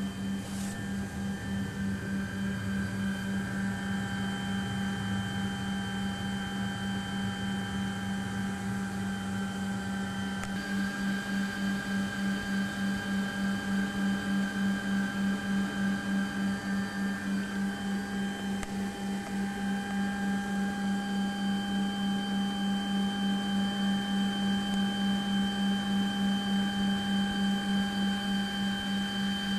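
Steady electrical hum with a pulsing beat of about three a second and several thin high whining tones: the systems of a parked Douglas DC-8-62 airliner running, heard inside its cabin. The high tones grow a little stronger about ten seconds in.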